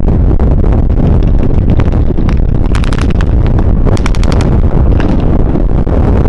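Heavy wind buffeting on the microphone over a continuous low rumble, with two short bursts of rapid cracks, about three and four seconds in.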